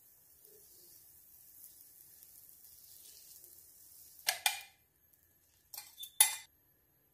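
Butter melting in a hot nonstick frying pan with a faint, high sizzle, then two short, loud bursts of noise a little after four seconds in and three more around six seconds as the egg goes into the pan.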